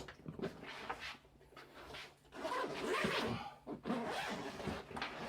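Zipper of a Savior Equipment Urban Warfare soft double rifle case being pulled along in long rasping runs, after a few short handling noises at the start.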